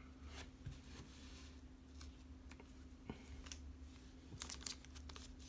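Faint scattered clicks and short rustles of Pokémon trading cards and a foil booster pack being handled.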